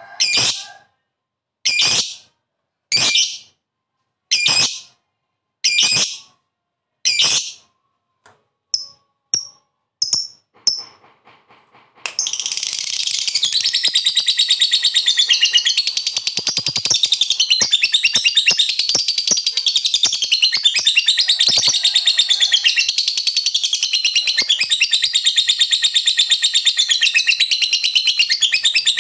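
Masked lovebird calling. First come short, sharp, separate shrieks about every second and a half, then a few faint chirps. A little before halfway it breaks into one long, unbroken, rapidly pulsing chattering trill: the long 'ngekek' that lovebird keepers prize.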